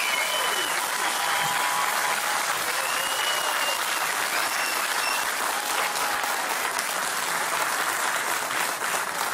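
A large crowd applauding steadily, easing off slightly near the end.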